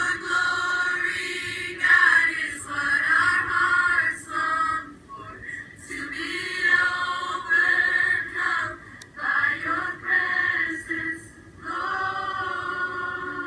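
A large crowd of high school students and staff singing a worship song together, played back through a laptop's small speakers. It sounds thin, with little bass, and comes in sung phrases with short breaks between them.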